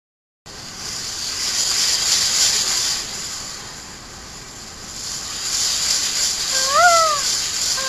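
Ocean surf washing in, swelling twice in a steady hiss, after about half a second of silence. Near the end, a short cry that rises and falls in pitch.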